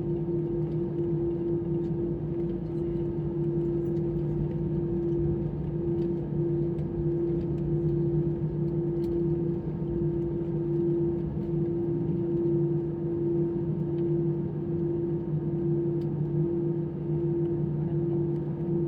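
Airbus A320-200 engine noise heard inside the cabin during takeoff: a steady drone with a constant low hum, unchanging in pitch.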